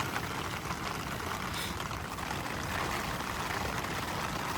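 Heavy rain falling steadily on the tent, an even hiss with no breaks.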